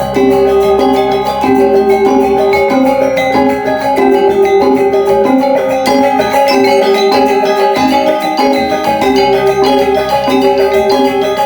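Balinese gamelan playing: bronze metallophones ring out a fast, even run of struck notes over a deep, sustained gong hum.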